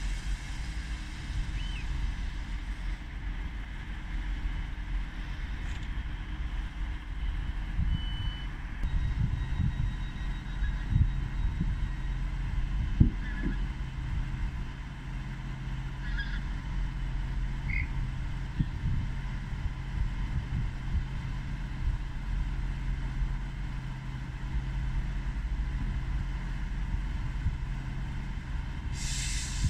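ScotRail Class 158 diesel multiple unit idling at a station platform, a steady low engine hum. A short high beep sounds about eight seconds in, and a few knocks come a little past the middle.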